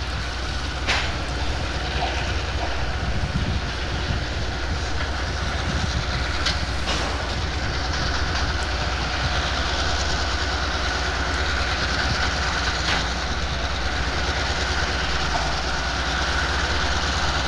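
Slow-moving Conrail freight train passing: covered hopper cars with a few clicks of wheels over rail joints, then a pair of Conrail diesel locomotives running past. A steady whine joins about halfway through.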